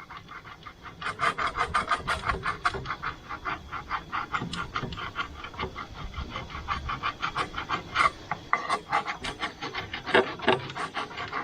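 Hand file scraping back and forth over the copper radiator's tank in quick, steady strokes, starting about a second in, knocking off old paint to clean the metal for soldering.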